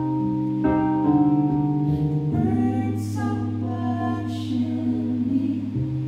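Electric keyboard and violin playing a slow song together: held low keyboard notes change every second or so under a violin line with vibrato.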